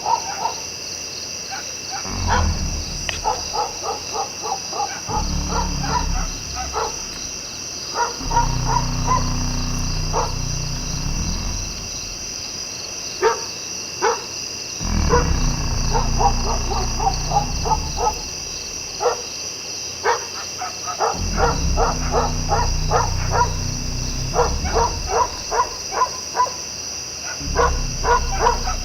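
Animal calls, trains of short rapid yaps, over a steady high buzz, while a low droning rumble swells in and out several times, each lasting two to three seconds.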